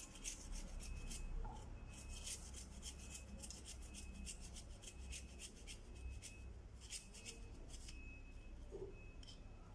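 A piece of peeled fresh ginger being grated by hand: a faint, continuous run of quick, repeated scraping strokes against the grater.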